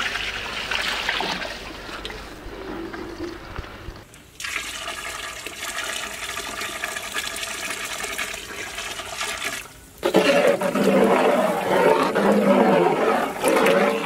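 Tamarind juice poured in a stream into a large metal cooking pot of curry masala, splashing as the pot fills. The sound comes in three separate pours, and the last few seconds are the loudest.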